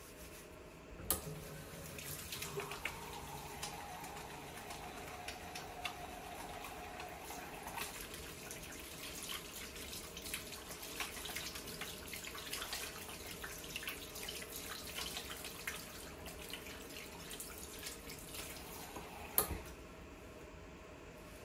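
Tap water running into a ceramic bathroom sink while hands are washed under the stream. A sharp click about a second in starts it, and another click near the end is followed by the water stopping.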